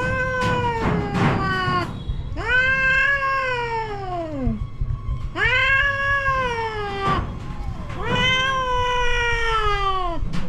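Mother cat yowling defensively in about four long, drawn-out calls, each rising then falling in pitch. This is a threat display warning off an approaching puppy.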